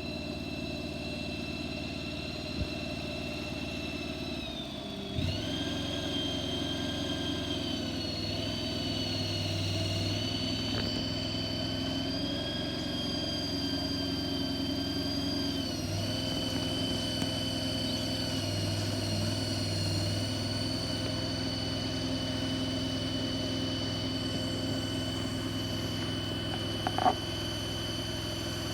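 Mini skid-steer loader's 23 hp Vanguard engine running with a steady high whine. The engine note dips and picks up again about five seconds in and shifts again around sixteen seconds as the machine is worked. A brief clank comes near the end.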